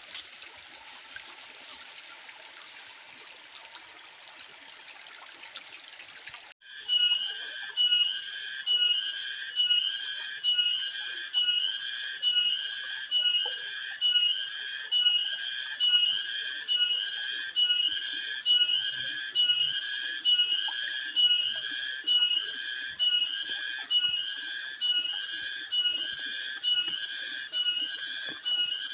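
Stream water trickling softly. About six and a half seconds in, a cicada starts a loud, rhythmic pulsing song that repeats evenly, each pulse a buzzy, whistle-like call.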